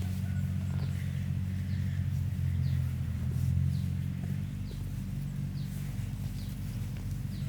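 A motor running steadily with a low hum, with faint short high chirps repeating about once a second over it.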